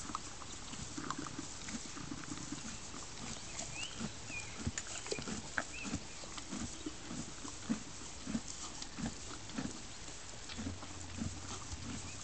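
Horse chewing its feed: a steady rhythm of low crunching chews, about one and a half a second.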